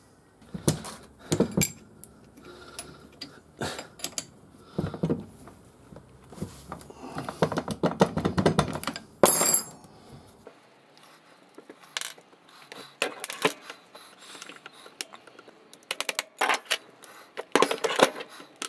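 Irregular metallic clinks, knocks and rattles as the cast-iron apron of a Boxford lathe and its half-nut parts are handled and set down on a workbench, with a brief busier rattle and one sharp clink about nine seconds in.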